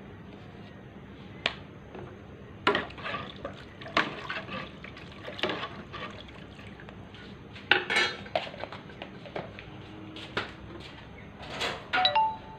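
Metal utensil stirring turmeric into broth in a metal wok, knocking and scraping against the pan with liquid sloshing, in irregular strokes. A short ringing clink near the end.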